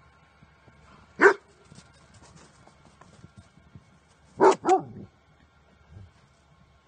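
Dog barking: one sharp bark about a second in, then two quick barks in a row about four and a half seconds in.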